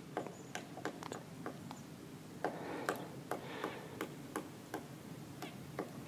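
Pileated woodpecker pecking into a tree branch: sharp, single wooden knocks at an uneven pace of about two to three a second, foraging blows rather than a drumming roll.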